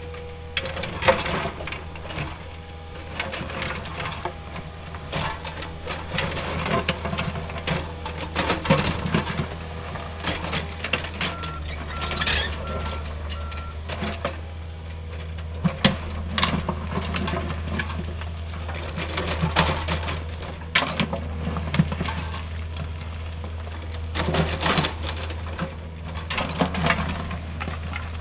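Hydraulic excavator's diesel engine running steadily, with repeated irregular clunks and scrapes of broken rock and soil as the bucket digs and pushes stone. A short series of beeps comes about twelve seconds in.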